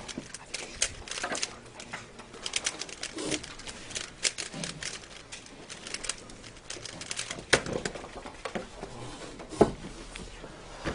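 Rapid, irregular clicking of a 3x3 Rubik's cube's layers being turned in a blindfolded solve. About three quarters of the way through comes a sharp slap, the solver's hands coming down on the Speed Stacks timer pads to stop it.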